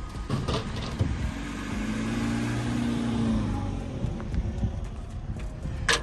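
A car driving past on the road, its engine and tyre noise swelling and fading over a few seconds. A single sharp knock near the end.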